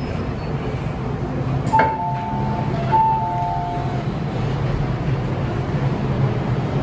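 MTR M-train door chime as the passenger doors open: a click, then a two-note high-low chime sounded twice. Under it is the steady low hum of the stopped train.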